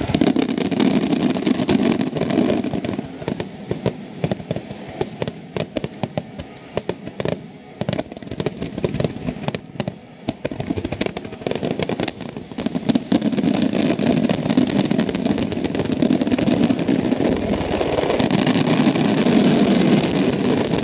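Fireworks display: many shells bursting in quick succession as a dense barrage of bangs. It thins to scattered sharp reports in the middle, then builds again into a continuous rumble of overlapping bursts toward the end.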